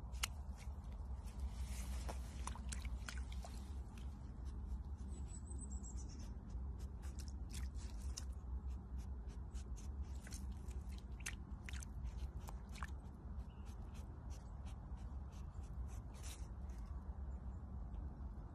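A serval rooting and chewing at something on the ground in wet grass: irregular sharp crunches and clicks over a steady low rumble.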